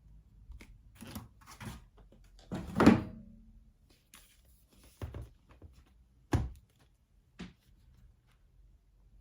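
A product box and its packaging being handled: a few scattered knocks and thunks, the loudest a little under three seconds in with a short ring after it, and another sharp knock past the middle.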